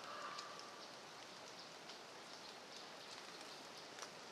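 Faint, scattered pattering of water drops falling on fallen leaves, over a steady quiet hiss.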